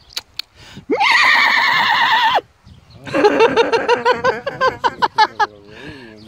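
Horses whinnying: a shrill, quivering whinny of about a second and a half, then after a short gap a longer, lower, pulsing whinny that drops in pitch near the end. A few quick clicks come at the very start.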